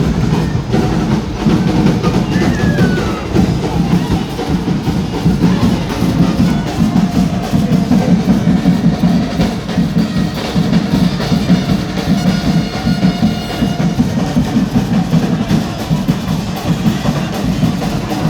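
Loud carnival music driven by dense, fast drumming and percussion.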